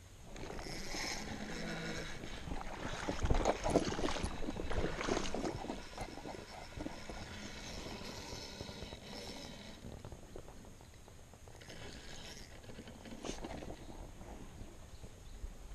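Spinning reel being wound by hand, with rustling, knocks and scraping from handling the rod close to the camera; the loudest, most jumbled stretch comes about three to five seconds in.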